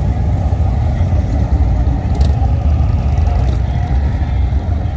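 Harley-Davidson touring motorcycles' V-twin engines running at low speed as the bikes ride slowly past, a steady, deep engine sound.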